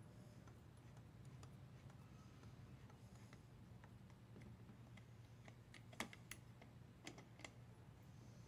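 Near silence broken by faint, scattered clicks of a long-shafted driver turning and seating the carburetor mounting screws on an Echo GT-225 trimmer as they are tightened down, with a few sharper clicks about six to seven and a half seconds in. A low steady hum runs underneath.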